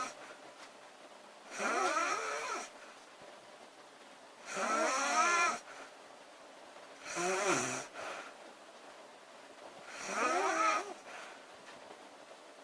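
A woman snoring loudly: four snores about three seconds apart, each about a second long and rising and falling in pitch.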